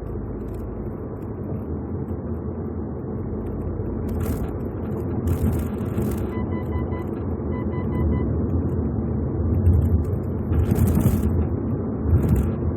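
Mitsubishi Eclipse Cross driving, heard from inside the cabin: steady low road rumble with several sudden rattling, flapping bursts as the car goes over bumps, the abnormal 'bata-bata' noise whose cause the dealer struggled to find. Two short runs of electronic beeps come between six and eight seconds in.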